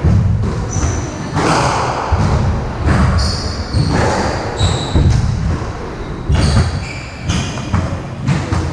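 Squash rally: the ball hitting rackets and the court walls with sharp, echoing knocks about once a second, and rubber-soled shoes squeaking on the wooden court floor between shots.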